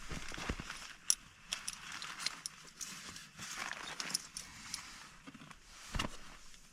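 Rustling and handling noises with scattered sharp clicks, and a dull thump just after the start and another about six seconds in.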